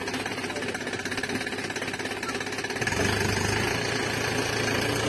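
A fast, steady, engine-like mechanical rattle, with a low hum that joins it about three seconds in.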